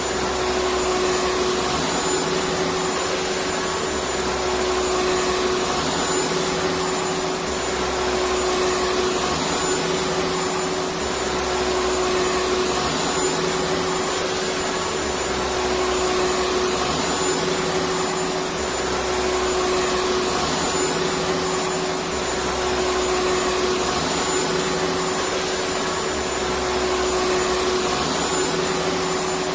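Vacuum cleaner running steadily, a continuous loud rushing noise with a constant motor whine.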